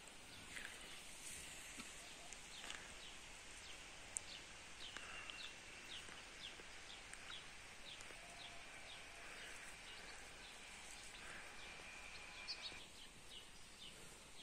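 Faint birds chirping outdoors: many short high chirps, with a steady high trill running through the middle that stops near the end.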